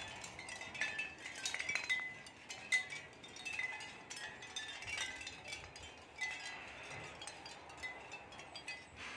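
Capiz shell wind chime clinking: thin shell discs knocking together in an irregular patter of light clicks, each with a short bright ring.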